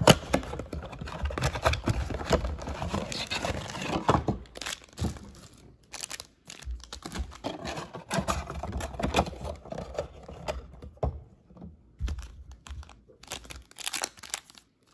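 Cardboard blaster box of Panini Prizm basketball cards being torn open at its top flap, then the wrapped card packs pulled out and handled, with irregular tearing and crinkling and a couple of brief pauses.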